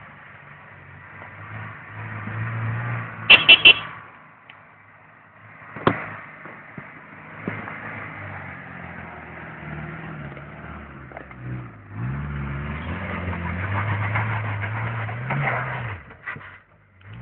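Daihatsu Feroza's engine running and pulling off-road, its pitch rising and falling with the throttle. Three short, loud, sharp sounds come in quick succession about three seconds in, and the engine runs louder from about twelve seconds until it drops away near the end.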